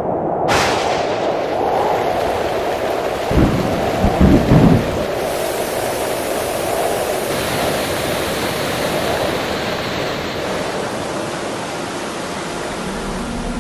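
Steady heavy rain with thunder, which rumbles several times about three to four seconds in.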